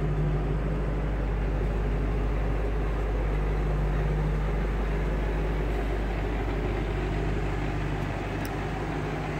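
2008 Shelby GT500's supercharged 5.4-litre V8 idling steadily, a low even hum.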